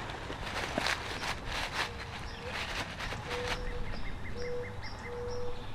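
Woodland birds calling: a low cooing series of four steady notes, the first ending in a rise, with short high chirps over it. Brief rustling and brushing in the first three seconds.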